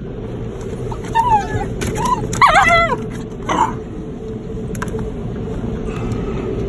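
Miniature schnauzer giving a few short whines and yips, each falling in pitch, the loudest about two and a half seconds in, over the steady low rush of the car wash heard from inside the car.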